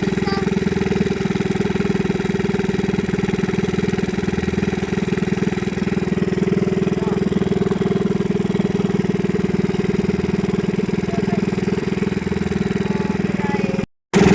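A small fishing boat's engine running steadily at an even speed, cutting out for a fraction of a second near the end.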